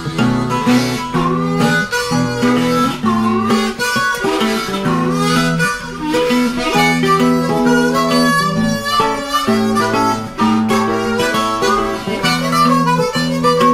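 Music: a harmonica playing held and bending notes over acoustic guitar.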